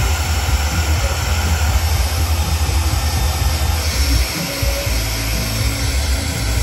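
Handheld hair dryer blowing steadily, drying fresh airbrushed paint on a crankbait lure body, with a low rumble underneath.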